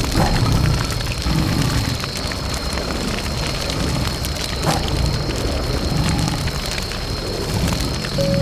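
Steady patter of rain with a dense crackle of drops, over a soft low rumble that swells about once a second.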